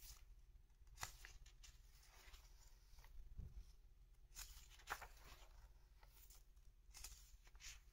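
Faint rustles and light taps of paper as a weekly planner's pages are turned and pressed flat by hand. A few short rustles come about a second in, between four and five seconds, and again near the end.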